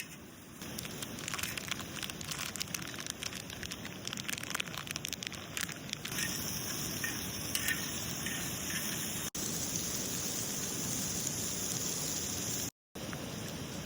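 Steady rain falling, with many separate drops ticking during the first six seconds, then a smoother, steadier hiss. The sound cuts out briefly about nine seconds in and again near the end.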